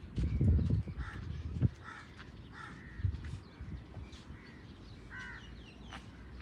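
Several short bird calls, a few of them spaced about a second apart, over a low rumble that fades out about a second and a half in.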